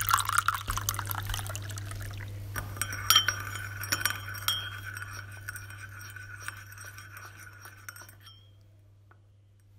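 Liquid being poured into a cup, then a spoon clinking against the cup, with the ringing fading away over the last seconds. A low steady hum runs underneath.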